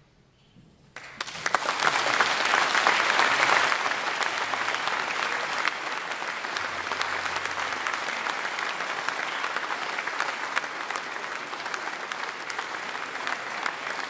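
Audience applause breaking out about a second in, swelling quickly to its loudest within the first few seconds and then going on steadily.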